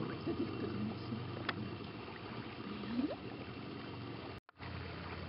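Low steady hum of a distant motorboat engine carrying over calm water, with faint water sounds.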